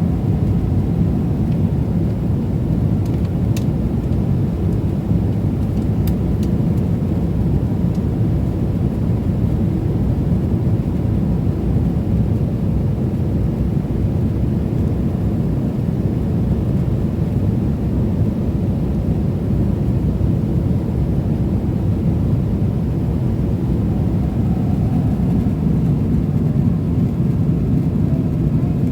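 Cabin noise aboard an Emirates Boeing 777-300ER: a steady, low rush of engine and airflow noise that does not change, with a couple of faint ticks about 3 and 6 seconds in.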